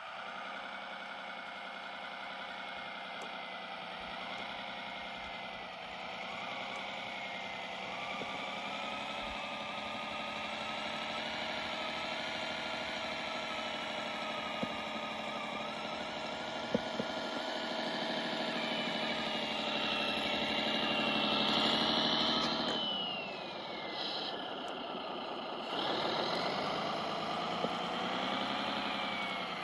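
Kyosho Blizzard radio-controlled snow tractor running, its drive whining. The pitch rises and falls with speed, drops sharply about two-thirds of the way through, then climbs again, with a couple of faint clicks midway.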